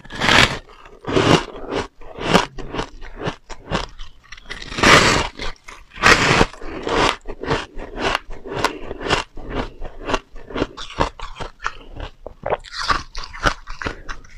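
Bites into a block of soft, compacted shaved ice and crunchy chewing of it, close to the microphone: several loud crunching bites, the biggest at the start and around five to seven seconds in, with a quick run of smaller crunches from chewing between them.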